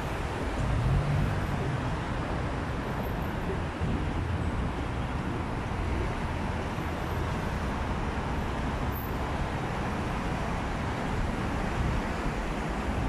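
Steady road traffic noise from a busy city road: engines and tyres of passing buses and cars, with a heavier engine hum swelling briefly about a second in.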